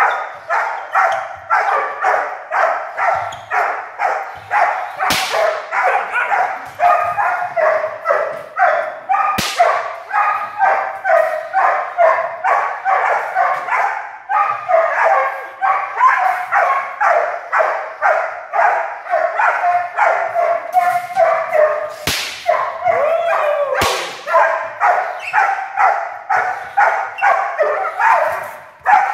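Puppies barking nonstop in rapid, excited barks, about three a second: aroused barking at a helper during protection-training agitation. Four sharp cracks cut through the barking, two near the start and two in the last third.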